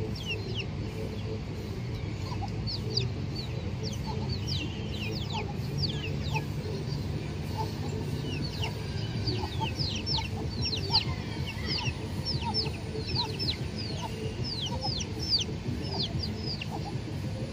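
Chicken clucking, with many short, high, falling chirps throughout over a steady low rumble.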